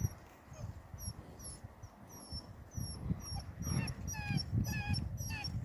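Six-week-old Great Dane puppies whimpering and yipping in short, repeated, falling cries, which come faster and louder from about halfway through.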